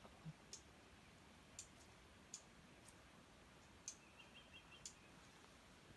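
Near silence, broken by about six faint, sharp clicks at irregular intervals and a brief faint high trill about four seconds in.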